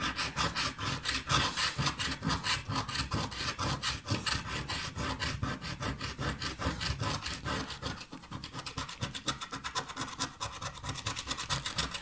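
Scratch-off lottery ticket being scratched: rapid, back-and-forth scraping strokes on the card's latex coating, several a second, easing briefly about two-thirds of the way through.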